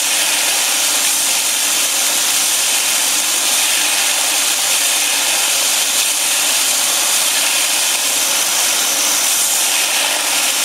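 Rice milk grinding machine running steadily, grinding soaked rice and water fed by hand into its hopper, with a steady high-pitched grinding noise.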